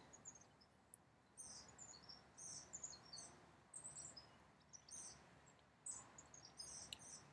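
Faint songbirds chirping: many short, high chirps and trills come and go over a quiet outdoor background hiss.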